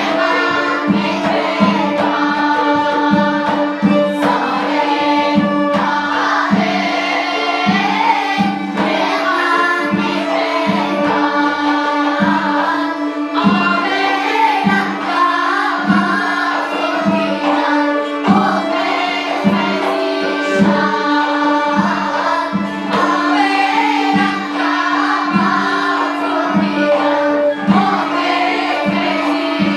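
Children's choir singing an Armenian folk song together, over a steady drone and a regular low drum beat.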